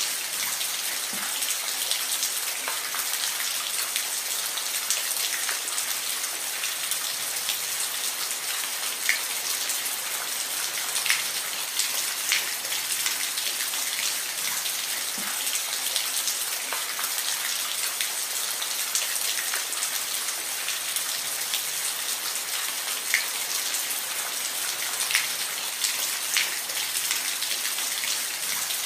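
Steady rain falling, an even hiss with scattered individual drops striking nearby surfaces as sharp pats.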